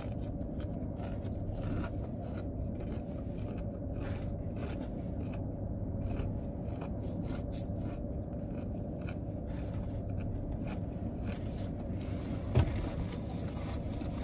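Close-up chewing of fried chicken gizzards and livers, with small crunches and mouth clicks, over a steady low hum in the car cabin. A single short knock near the end.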